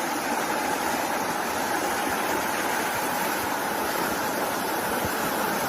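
Steady rushing water noise, with no breaks or single impacts.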